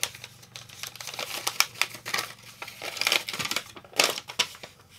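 Packaging rustling and crinkling under the hands, with an irregular string of small clicks and taps as a box of parts is searched. The loudest crackle comes about four seconds in.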